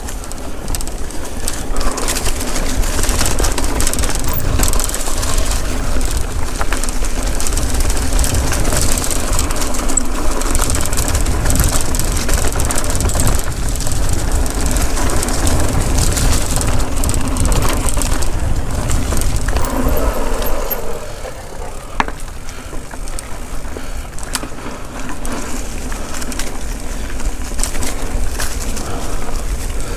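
Mountain bike riding along a leaf-covered dirt singletrack: a steady rush of tyre and wind noise with a low rumble, and frequent clicks and rattles from the bike over the trail. It gets quieter about two-thirds of the way through.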